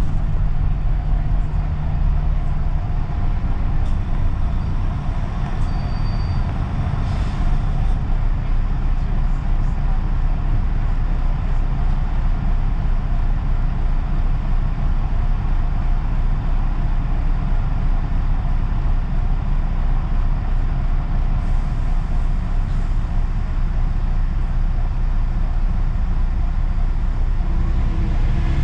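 London bus engine running and idling in slow traffic, a steady low rumble heard from inside the bus, with a brief hiss about seven seconds in.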